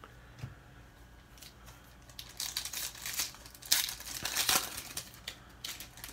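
Wrapper of a 2019 Donruss football card pack crinkling and tearing as it is ripped open by hand. It is a run of crackly bursts starting about two seconds in, loudest in the middle.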